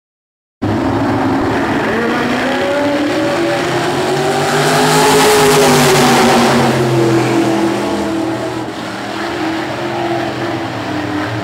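IMCA 305 sprint cars racing, several small-block V8 engines running hard together. The sound cuts in about half a second in and is loudest around five or six seconds in as a car goes close by, its pitch rising and then falling, before easing slightly.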